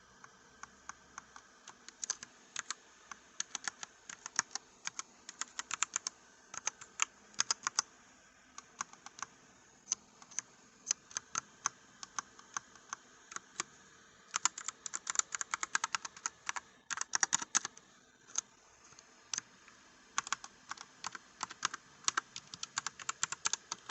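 Typing on a Redragon Caraxes Pro K644 SE wireless mechanical keyboard, all plastic, with Redragon red linear switches: an irregular run of key clacks with faster flurries past the middle.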